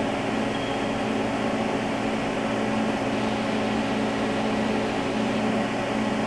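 Steady hum and fan whir of a powered-up YCM Supermax CNC vertical machining center idling, with its cabinet cooling fan running behind the vent grille. The hum holds one even pitch with no change.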